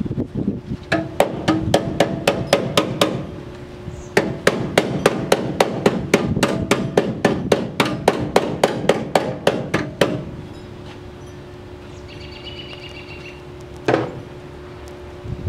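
Rapid, even hammer taps on metal, about five a second: a short run, then a longer run of about six seconds. One more knock comes near the end, all over a steady low hum.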